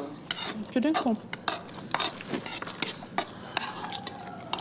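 Cutlery clinking and scraping against food containers as people eat at a table, a series of short, sharp clicks and scrapes.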